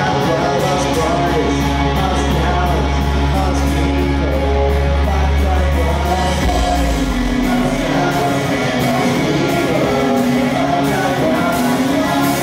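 Rock band playing on stage: drums, electric guitar and bass with a sung line over them. A deep bass note is held for about the first six seconds before the bass line moves on.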